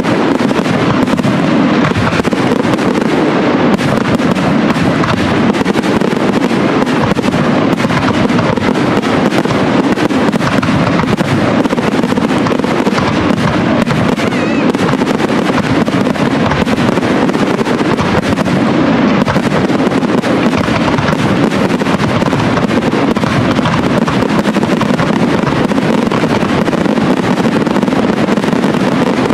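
Aerial fireworks shells bursting in a rapid, continuous barrage, the bangs and crackle overlapping with no pause between them.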